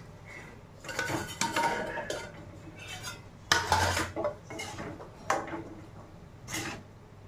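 Steel kitchen utensils clattering: a spoon and metal pots knocking against each other in a run of clinks and clanks, the loudest about halfway through, then a few single knocks.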